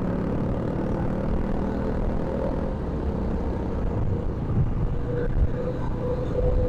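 Yamaha motorcycle riding at steady road speed: the engine runs under a heavy, steady wind rumble on the handlebar-mounted microphone, with traffic noise around it.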